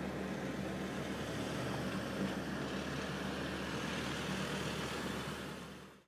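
Inland cargo barge's diesel engine running steadily as it passes close by, a low hum with a broad wash of noise over it, fading out near the end.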